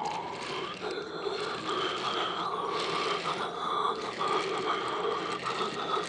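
Model commuter train rolling past close by: a steady motorised whirr with a light, irregular clicking of wheels on the track.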